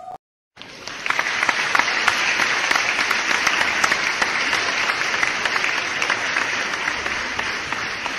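A crowd applauding, many hands clapping densely and steadily, starting after a brief silence about half a second in and easing off slightly toward the end.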